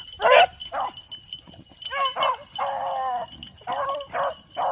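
Beagles baying on a rabbit's scent trail: about six separate bawls, one drawn out for nearly a second near the middle.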